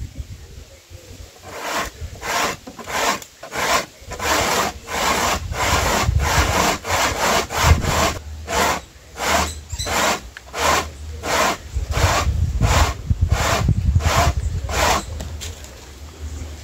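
Dry corn rubbed by hand on a homemade punched-tin grater nailed to a wooden board: rasping strokes at about two a second. They start about a second and a half in and stop shortly before the end.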